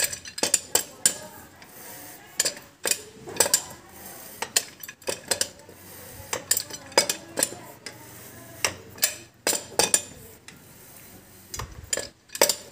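Steel spanners clinking and knocking against nuts and metal as the bolts on a submersible pump assembly are tightened: irregular sharp metallic clicks, some ringing briefly.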